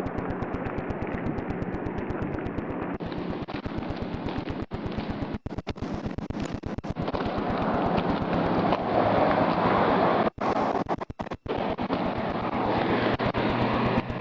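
Steady vehicle road and engine noise with wind on the microphone, under a fast, even crackle. It swells for a couple of seconds about eight seconds in.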